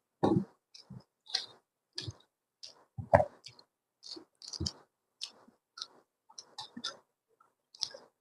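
Close-miked chewing and mouth sounds of a person eating: irregular wet smacks and small clicks, a dozen or more short sounds with no steady rhythm, the loudest about three seconds in.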